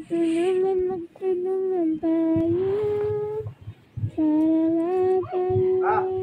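A high voice singing a melody in long, smooth held notes, phrase after phrase with short breaks between.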